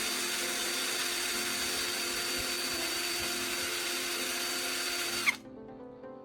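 Electric drill running steadily, spinning a carbon rod against sandpaper: a constant motor whine with a gritty sanding hiss as the rod's tip is ground to a point. It cuts off about five seconds in, leaving soft background music.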